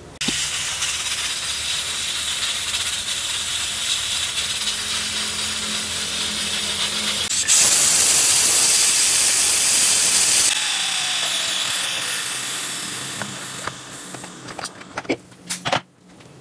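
Pressure cooker venting steam through its lifted weight valve: a loud, steady hiss that starts abruptly, gets louder about seven seconds in, then dies away as the pressure runs down. A few clicks and knocks follow near the end.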